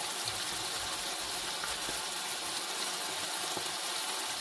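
Ground beef frying in oil in the pan, a steady sizzling hiss.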